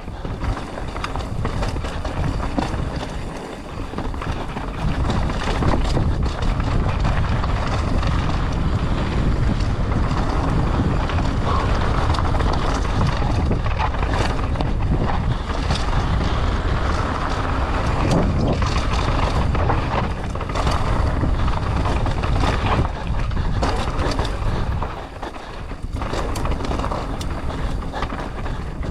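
Wind rushing over the camera microphone on a fast mountain-bike descent, with tyres running over dirt and rock and the bike rattling and knocking over rough ground.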